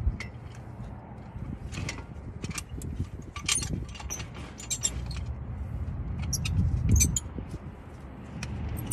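Irregular metal clicks and clinks of a steel C-clamp being handled against a disc brake caliper, as it is set over the caliper to press the piston back, with the loudest knock a little after the middle. A low steady rumble runs underneath.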